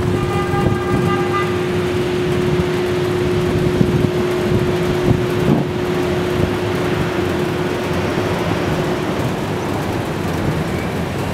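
Steady rush of wind and city traffic noise. A horn sounds briefly in the first two seconds, and a steady low hum runs underneath until it fades about eight or nine seconds in.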